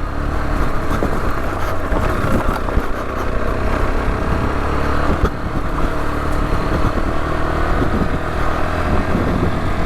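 Rieju Adventura 125's single-cylinder engine running steadily while the bike is ridden off-road on a rough lane, with a few knocks and rattles from the bike over the surface.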